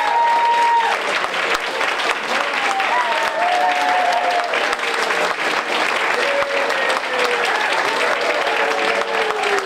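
Audience applauding steadily through a curtain call, with a slow fiddle melody of held, sliding notes played over the clapping.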